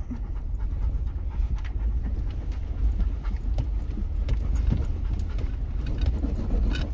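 Low rumble of a vehicle driving slowly over a bumpy dirt trail, heard from inside the cabin, with frequent small rattles and knocks. A dog pants over it.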